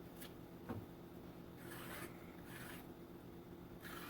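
Faint rubbing and scraping as the thick skin is peeled off a green plantain: a light knock about a second in, then three short scrapes.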